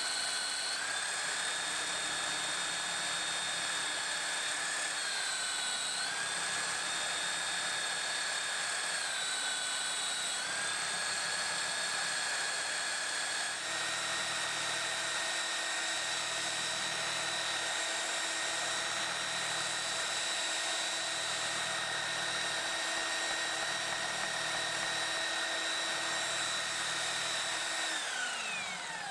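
Belt sander mounted upside down as a bench sander, its motor running with a steady whine that dips in pitch twice, then switched off near the end, the whine falling as the motor spins down.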